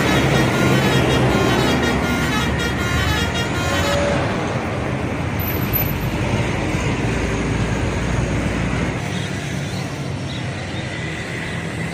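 Bus telolet horn playing a quick run of short tooting notes for about the first four seconds over engine rumble and road noise, then only the heavy engine rumble and road noise carry on, easing slightly near the end.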